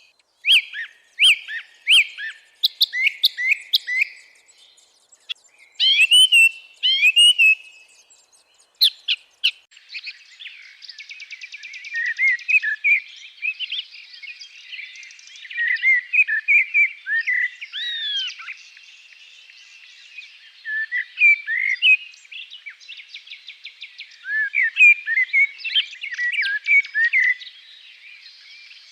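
Songbirds of a May woodland singing: separate series of short, sharp, downward-sweeping chirps for the first several seconds, then from about ten seconds in a denser chorus of several birds singing over one another, with a faint buzzing trill beneath.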